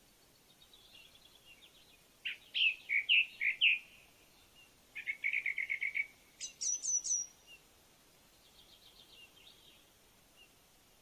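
Songbirds singing: a loud, varied phrase about two seconds in, a fast trill of even notes around five seconds, then a few high notes that fall in pitch, with fainter trills before and after.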